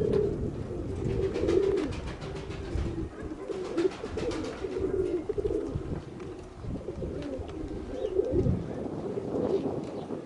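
Domestic pigeons cooing continuously, with gusty wind rumbling on the microphone.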